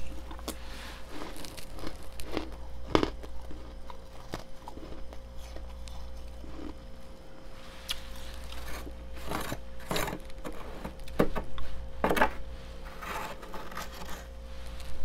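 Thick freezer frost being scraped and crunched in irregular crunches and scrapes. The loudest clusters come about three, ten and twelve seconds in, over a steady low hum.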